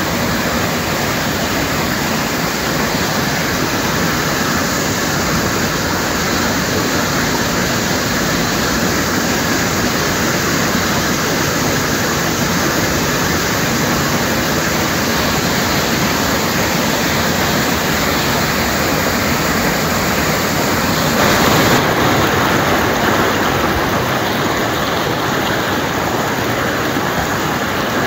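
Creek water rushing and splashing over boulders in small cascades, a steady rush that changes a little in tone and gets slightly louder about three quarters of the way through.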